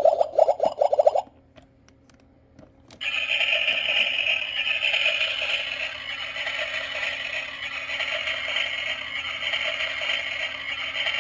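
Toy play-kitchen stove's electronic cooking sound effect through its small speaker. A pulsing sound stops about a second in, and after a brief quiet a steady frying-style hiss starts and carries on.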